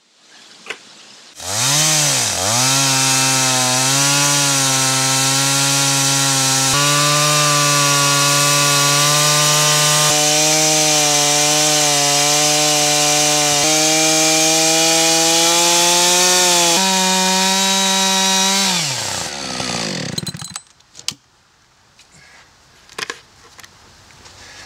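Gas chainsaw ripping lengthwise through a white pine log in a chainsaw mill to cut a 2-inch board. It comes in at full throttle about a second in and dips briefly in pitch as the chain bites, then holds a loud, steady whine under load for about 17 seconds with small shifts in pitch. Near the end the throttle is released and the saw winds down, and a few light knocks follow.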